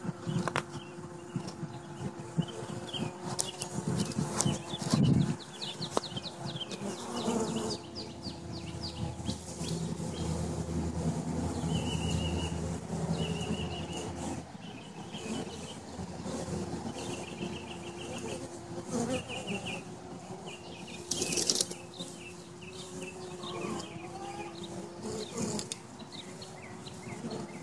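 Honey bees buzzing at the hive entrance: a steady hum whose pitch wavers as bees fly close past. Over it, runs of short high chirps from a bird come in the middle, and there is one brief crackle about three-quarters of the way through.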